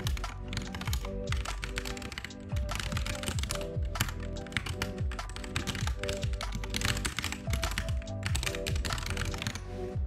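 Typing on a computer keyboard, a rapid, uneven run of keystroke clicks as code is entered in a text editor, over background lo-fi music with a steady beat.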